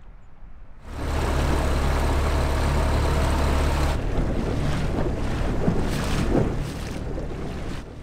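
Inflatable dinghy's outboard motor running under way, a steady low hum under heavy wind rush on the microphone and water slapping the hull; it starts suddenly about a second in, and the hum weakens about halfway through, leaving gusty wind and water.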